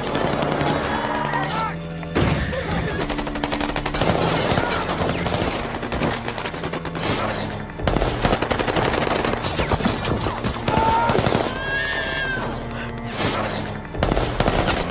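Film battle sound mix: rapid, repeated automatic rifle fire in quick bursts, with a steady music score underneath.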